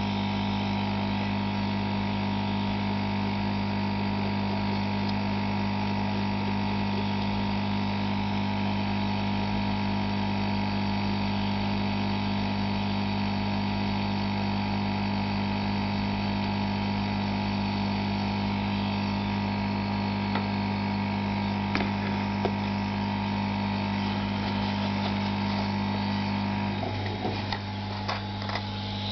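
Hot-air rework station blowing steadily, a constant electric hum with a hiss of air. A few small clicks come about two-thirds through, and near the end the hum wavers and dips briefly.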